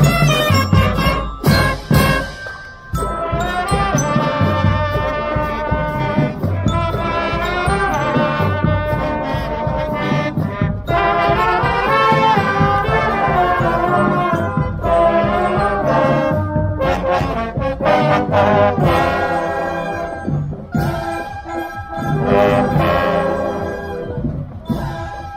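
Parade band music: brass instruments playing a melody over drums.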